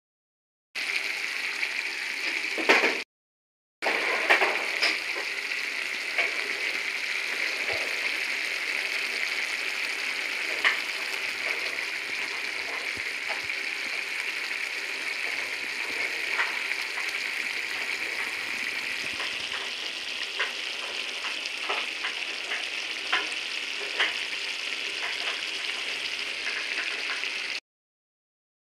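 Mola fish chorchori sizzling and bubbling in a metal karai, a steady frying hiss with occasional taps and scrapes of a spatula against the pan. The sound drops out twice near the start and cuts off shortly before the end.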